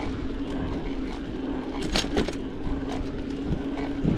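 Mountain bike rolling along a paved road: steady tyre and road noise with a low rumble and a faint steady hum, and a short sharp rattle about two seconds in.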